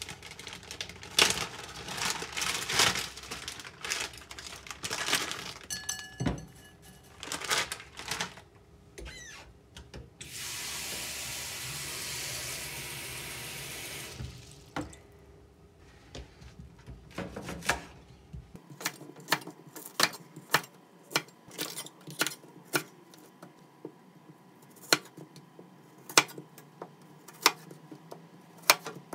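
Plastic zip-top bag and food packaging rustling and crinkling as they are opened. A kitchen tap then runs for about four seconds. After that, a chef's knife cuts green onion on a wooden cutting board, with sharp knocks on the board a little more often than once a second.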